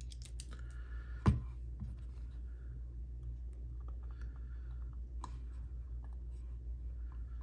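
Light clicks and scrapes of a metal bit driver with a T10 bit being set into a screw on a folding knife, with one sharp click about a second in, over a low steady hum.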